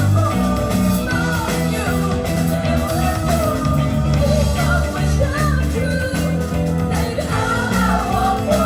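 Band music in a rock style: a singer over guitar and a bass line playing held notes.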